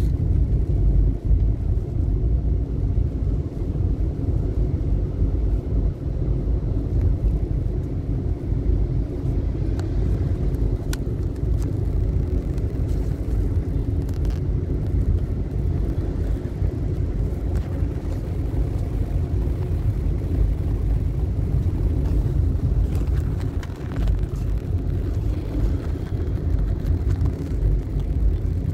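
Steady low rumble of a moving car heard from inside its cabin while driving.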